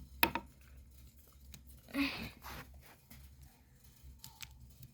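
Plastic toy dinosaur figures being handled and moved: a few sharp clicks and knocks, with a short rustling scrape about two seconds in.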